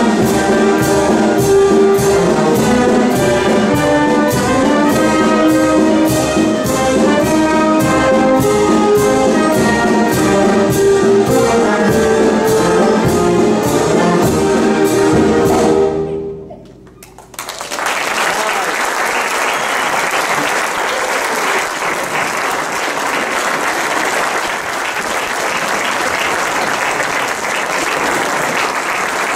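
Concert wind band playing the last bars of a march, brass and woodwinds over a steady beat of about two strokes a second, ending on a final chord about sixteen seconds in. After a second's pause the audience breaks into steady applause.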